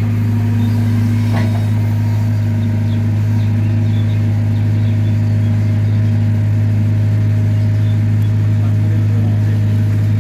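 Diesel engine of a small crawler excavator running steadily as the machine drives up out of a muddy pond, a constant low hum at an even level.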